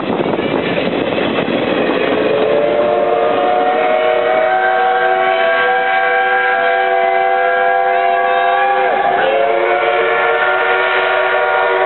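Long, continuous steam-locomotive whistle, a chord of several steady notes that sags slowly in pitch and dips briefly about nine seconds in. It takes over from the rumbling noise of the train's coaches running past at the start.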